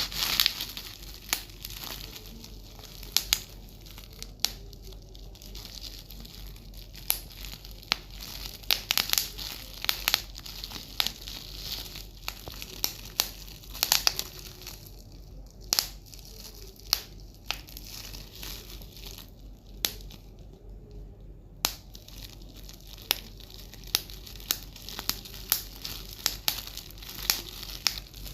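Bubble wrap being popped and crumpled by hand: irregular sharp pops, sometimes in quick clusters, over steady crinkling of plastic.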